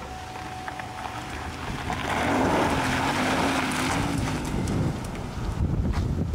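Car engine revving hard as it pulls away with its wheels spinning on loose dirt and gravel. The noise rises sharply about two seconds in and eases off as the car drives away.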